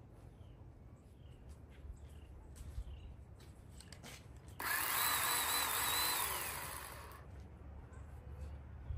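Ryobi electric pole saw's chain motor switching on suddenly about halfway in, running at full speed for a second and a half, then spinning down with a falling whine once the trigger is released.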